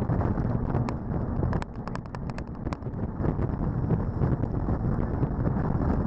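Jet boat running at speed on the river: heavy wind buffeting on the microphone over a steady rush of water and engine, with many scattered sharp ticks.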